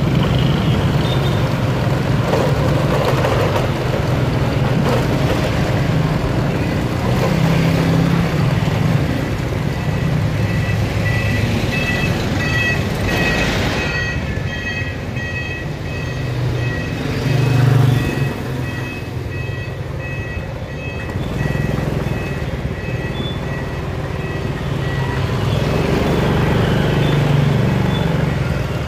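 Small motorbike engine running steadily while riding along a city street, with traffic noise around it. Through the middle, a high electronic beep repeats over and over for about ten seconds.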